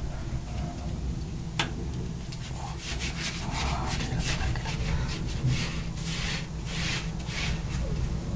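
Rhythmic crunching and scraping in snow, a run of short strokes about two to three a second, after a single sharp click about a second and a half in, over a steady low rumble.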